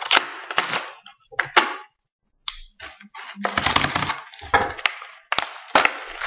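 Crinkly plastic packaging being opened and handled: a dense crackling in several bursts, with a short pause about two seconds in.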